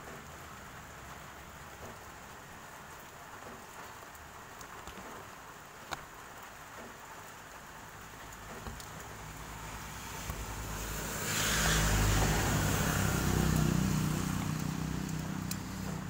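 A motor vehicle engine grows louder over several seconds, is loudest a little past the middle, then eases off, over a steady faint hiss. There is a single sharp click about six seconds in.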